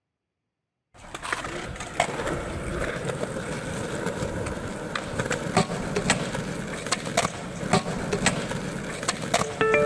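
Skateboard wheels rolling on a smooth hard floor, with irregular sharp clacks as the board's tail and wheels strike it. It starts about a second in, and music comes in near the end.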